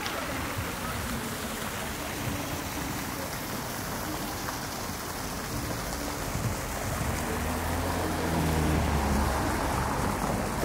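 Street ambience: a steady watery hiss, with a vehicle engine's low hum coming in past the halfway point, growing louder and dropping away near the end.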